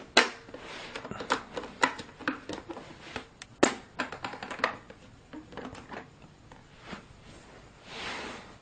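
Hard plastic toy pieces clicking and knocking as they are handled, in irregular taps a few times a second, with a brief rustle near the end.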